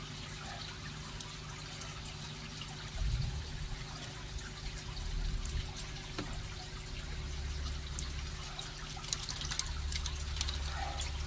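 Water trickling and lightly splashing in a shallow tub of koi fry as hands and a plastic sieve move through it, with a low rumble underneath.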